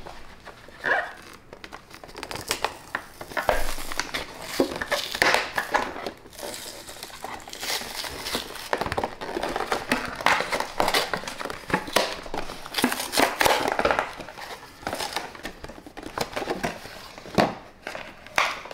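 Clear plastic blister packaging crinkling and its cardboard backing tearing as a toy monster truck is worked out of the package by hand, in irregular crackles and rips.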